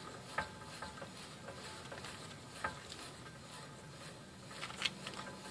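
Worn wheel hub bearing of a 2001 Toyota Prius, spun slowly by hand with the axle out, giving a faint gritty, sandpaper-like grinding with three light clicks. The grinding is the sign of the bad bearing.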